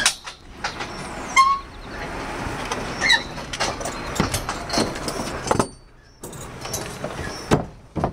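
Footsteps and knocks on scaffold boards and tubes, a dozen or so sharp knocks at uneven intervals, over a steady outdoor background noise.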